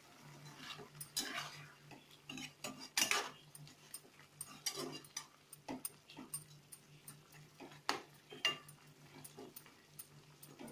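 Metal spatula scraping and knocking against a pan while stirring chicken curry, in irregular strokes, over a low steady hum.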